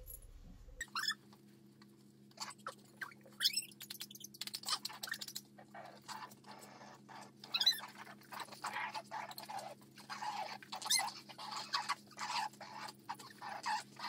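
Dog playing with its toys: irregular short scuffles and clicks over a steady low hum that starts about a second in.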